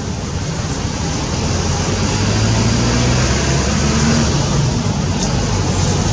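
Steady hum of a motor vehicle engine running over a loud background hiss. It grows a little louder about two seconds in.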